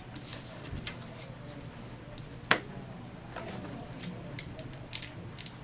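Trading cards and booster pack wrappers being handled: faint rustling and small ticks, with one sharp tap about halfway through as something fumbled hits the table.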